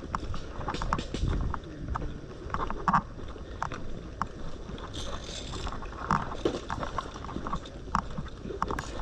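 Irregular clicks, knocks and rustling close to a body-worn GoPro's microphone: handling and gear noise, with a brief hiss about five seconds in.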